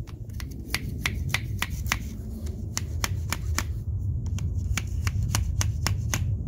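Claw hammer tapping repeatedly on a plastic tube slipped over a motorcycle fork tube, driving the fork dust cap down into the fork leg. Light, sharp taps, about three a second, pausing briefly near four seconds in.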